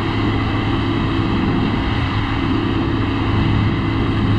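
A large engine running steadily at constant speed: an even, low hum with a higher drone above it that does not change.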